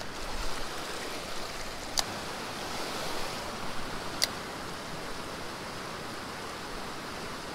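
Shallow creek riffle rushing steadily, with two sharp clicks about two seconds apart.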